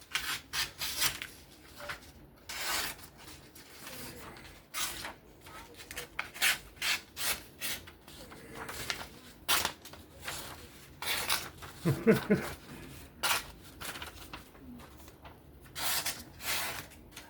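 A folding knife's edge drawn through material in about twenty short, scratchy cutting strokes at uneven intervals, an edge test showing a blade dull enough to need sharpening.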